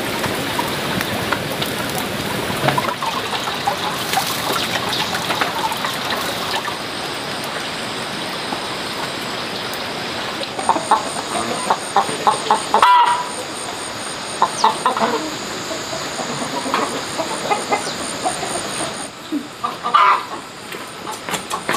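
Chickens clucking in short runs of calls over a steady background hiss.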